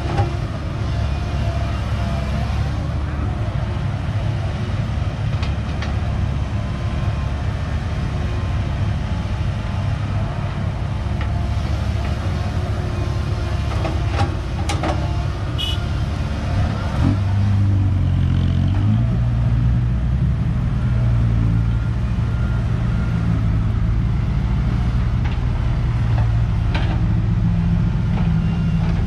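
Heavy diesel engines of a Komatsu excavator and six-wheel dump truck running steadily at work. About two-thirds of the way through the engine note shifts and grows stronger, as under load, and a few sharp metallic clanks come shortly before that.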